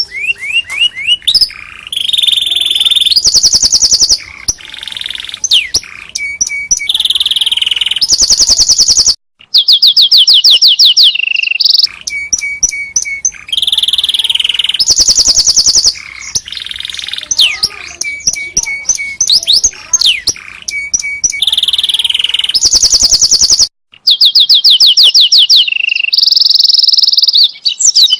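Domestic canary singing a long, loud song of fast trills and repeated high chirping phrases, the kind of song played as a masteran to tutor other canaries. It breaks off briefly twice, and the same run of phrases comes round again about every 14 seconds.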